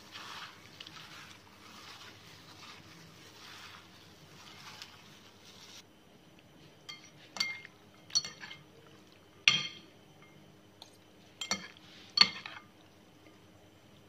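A metal spoon and fork tossing a dressed seafood salad in a bowl. For about the first six seconds there is soft wet swishing, then the utensils clink sharply against the bowl about six times, loudest midway and near the end.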